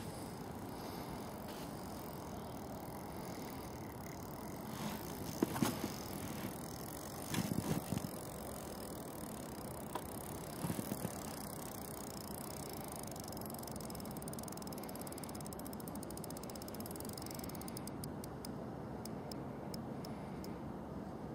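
Spinning reel working as a big wels catfish is played on a hard-bent rod, with mechanical ticking and rattling over a steady background hiss. There are a few short handling bumps about five, seven and eleven seconds in.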